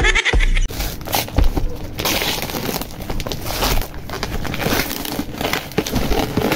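Gift wrapping paper being torn off a box and crumpled by hand: continuous crinkling and rustling.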